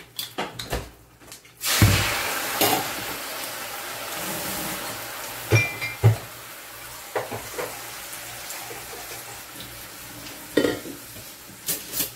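Whole fish sizzling in a hot stainless-steel wok: the frying hiss jumps up suddenly about two seconds in and slowly dies down. Metal utensils clink and knock against the wok and dishes a few times.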